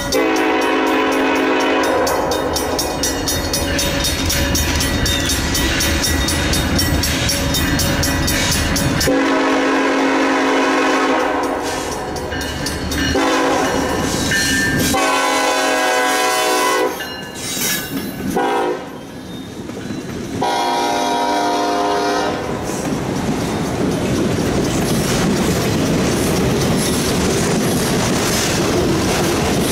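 A Norfolk Southern diesel locomotive's air horn sounds as a freight train approaches: one long blast of about nine seconds, another long blast, then a run of shorter blasts. After about 22 seconds the horn stops and the locomotives and autorack cars roll past with steady wheel clatter and rumble.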